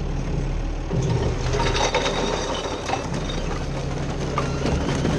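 Garbage truck engine running steadily, heard from inside the hopper of a Heil Rapid Rail automated side-loader, with scattered rattles and knocks from the hopper and its recycling load.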